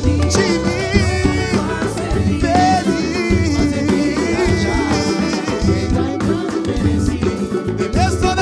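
Live pagode music by a samba group: percussion and bass keeping a steady swing, with a bending melody line over it.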